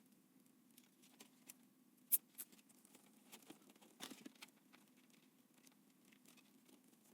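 Scattered light clicks and taps of PC parts being handled, with a sharp click about two seconds in and a short cluster of taps around four seconds, over a faint low hum.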